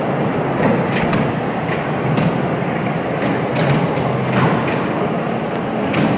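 Miniature kiddie train ride running on its small circular track, its wheels clicking over the rail joints in an irregular clickety-clack about twice a second over a steady running noise.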